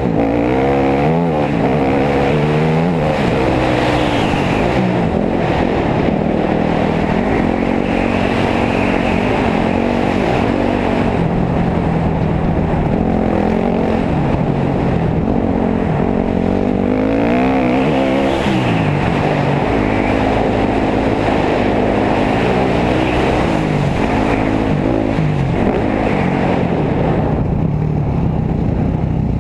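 2019 Husqvarna FC350 dirt bike's 350 cc single-cylinder four-stroke engine, being run in on its break-in ride, revving up and down as it is ridden along a dirt trail. Its pitch climbs and falls again and again with throttle and gear changes, with sharper revs about a second in and again near the middle.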